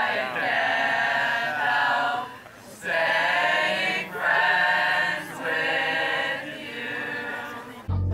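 A group of young voices singing together, in several sung phrases with short pauses between them.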